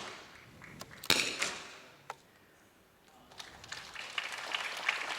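A .22 rimfire target rifle shot cracks about a second in, echoing briefly in the hall, with fainter shots before and after it. From about three and a half seconds in, the audience starts applauding and keeps it up.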